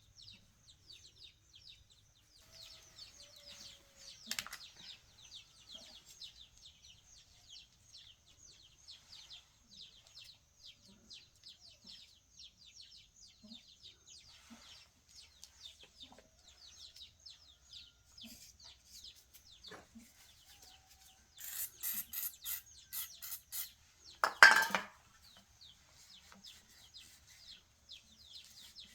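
Small birds chirping continuously in the background. Near the end comes a quick run of about eight clicks, then one loud short clatter.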